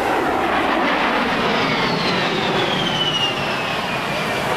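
A-10 Thunderbolt II's two TF34 turbofan engines flying past: a steady jet roar with a high whistle that falls in pitch as the aircraft goes by. This whistle is the A-10's unmistakable signature sound.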